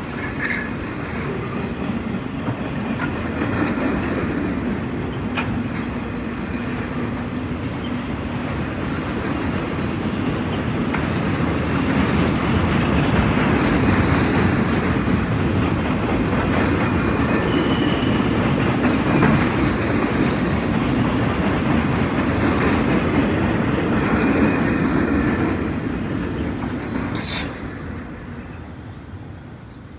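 Freight work train of flatcars loaded with track-maintenance machines rolling past: a steady rumble and clatter of steel wheels over the rails, loudest around the middle. There is a brief sharp high-pitched sound near the end as the last car goes by, and then the noise fades away.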